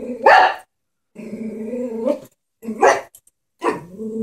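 Chihuahua growling steadily, breaking off into a sharp bark about three times. It is defensive growling and barking at a stuffed toy horse it is afraid of.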